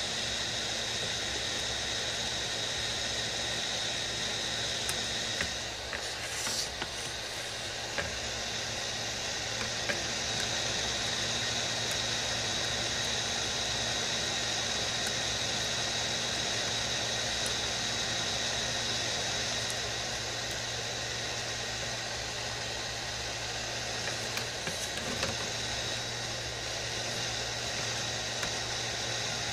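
Heat gun blowing a steady hiss of hot air with a steady high whine, softening the BGA glue around a laptop graphics chip. A few faint ticks as a metal pick scrapes at the softened glue.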